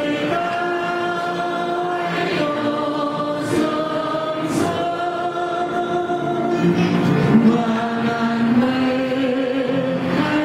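A choir singing a slow Christmas hymn in long, held notes.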